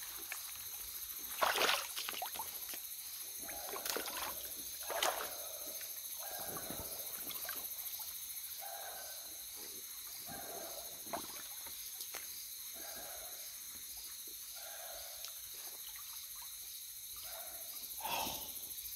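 Water sloshing and splashing, with a few sharper splashes in the first five seconds and a string of softer sloshes every second or two after that, over a steady high chorus of night insects.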